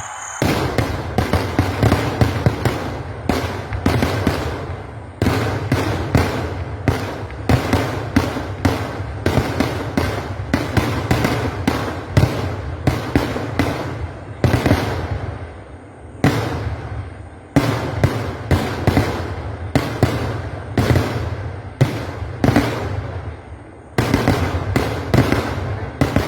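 Kerala vedikettu fireworks: a dense barrage of loud bangs, two or three a second, over a continuous rumble, with a few brief lulls.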